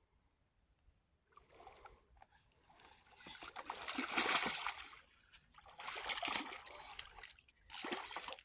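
A hooked carp thrashing and splashing at the water's surface as it is reeled into the shallows, in several bursts of splashing, the loudest about four seconds in.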